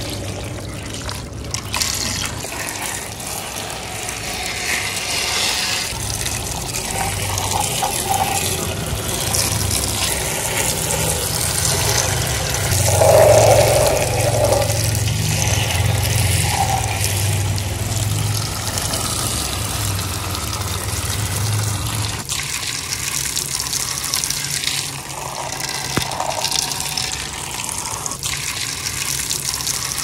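A jet of water from a hose splashing over a toy tanker truck, a steady rush and spatter, with a low hum under it for much of the time.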